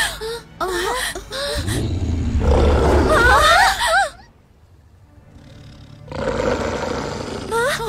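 Cartoon wolf roar, a deep rumble under a wavering cry, loudest from about two to four seconds in, over dramatic background music.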